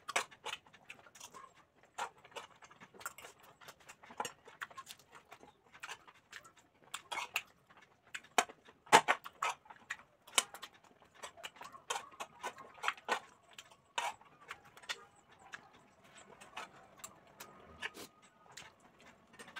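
Close-up eating sounds: wet chewing and lip-smacking, with a spoon and fork clinking and scraping on plates. The clicks come irregularly, a few each second.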